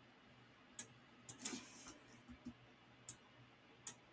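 About five sharp computer mouse clicks at irregular spacing, made while selecting and dragging shapes on screen.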